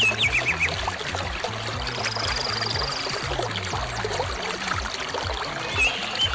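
Background music: a repeating low bass line under a steady hiss, with a quick run of high chirping notes at the start and the same run again near the end, and a short high trill about two seconds in.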